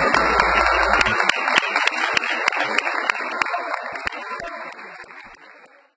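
Audience applauding, with distinct individual claps, the applause fading away to silence near the end.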